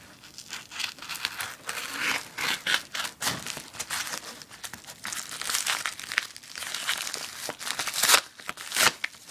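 A parcel's packaging being opened by hand: irregular crinkling and crackling, with some tearing.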